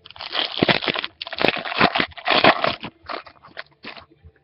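Plastic wrapper of a trading card pack crinkling and crackling as it is torn open and handled, in irregular spells that die away about four seconds in.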